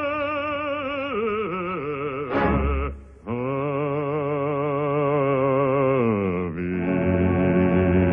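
Operatic singing: long held notes with a wide vibrato, broken off briefly about three seconds in, then a held note sliding down near the end and settling into a low sustained chord.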